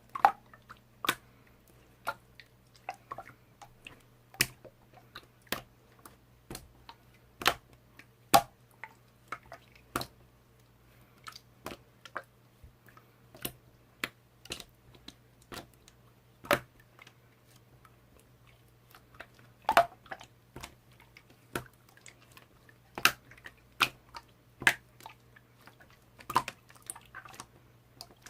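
Slime being pressed and worked by hand, giving irregular sharp wet pops and clicks about one or two a second, some in quick clusters, with soft squishing between them.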